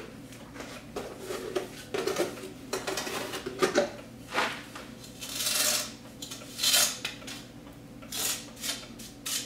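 Metal trowel scraping and clinking against a metal stove pipe converter as wet mortar is spread around its rim: irregular short scrapes and clicks, with a few longer scrapes in the second half.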